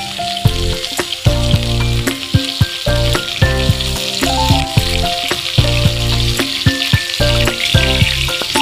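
Hilsa fish pieces sizzling steadily in hot oil in a frying pan, with background music playing a stepping melody over a bass line.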